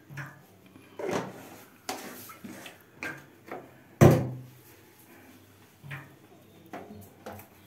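A series of separate knocks and clunks of kitchen utensils and containers being handled at the stove, about ten in all, the loudest about four seconds in.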